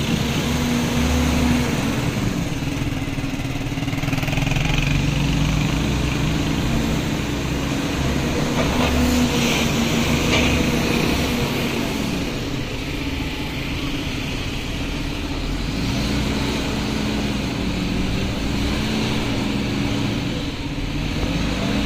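City road traffic heard from a moving vehicle: a steady engine hum that rises and falls in pitch as the vehicle speeds up and slows, over a constant wash of traffic noise.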